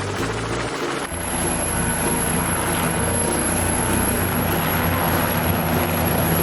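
Helicopter running steadily, a little louder from about a second in.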